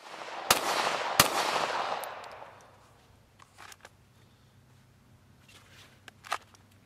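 Two pistol shots from a 9mm Glock 19X about 0.7 seconds apart, each ringing out into a wash of noise that fades over the next two seconds. Later, a few faint clicks and rustles.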